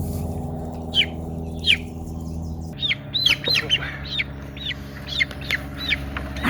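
A young chick peeping: short, high, downward-sliding peeps, two spaced ones at first and then a quicker run of about three a second. It is a chick left behind in the brooder, calling on its own.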